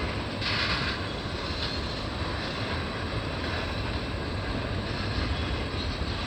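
Steady low rumble of a diesel freight locomotive running, with a short hiss about half a second in.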